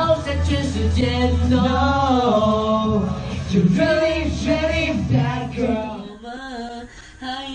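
A young male voice singing a Mandarin pop song live over a backing track with a steady bass beat. About six seconds in the backing drops out and a softer sung line carries on without a beat.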